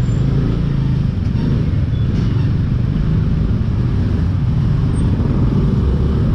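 Scooter and motorbike engines running at walking pace in slow, crowded lane traffic, a steady low rumble with no pauses.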